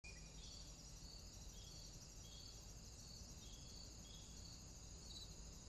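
Near silence with faint, steady high-pitched insect chirring and brief high notes recurring about once a second.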